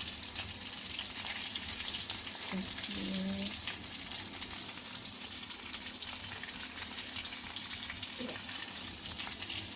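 Prawn spring rolls deep-frying in hot oil: a steady sizzle with fine crackling.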